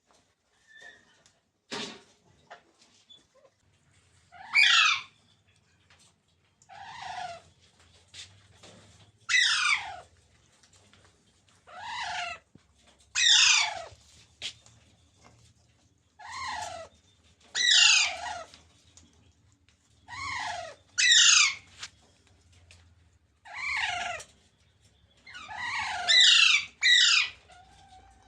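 Rose-ringed (green) parakeet calling over and over, about a dozen loud, harsh calls that each slide steeply down in pitch, one every second or two, with a few quick doubled calls near the end.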